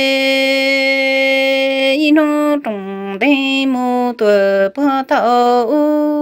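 Hmong kwv txhiaj sung poetry by a single unaccompanied voice. One long held note for about two seconds, then a run of short syllables that slide and step down in pitch.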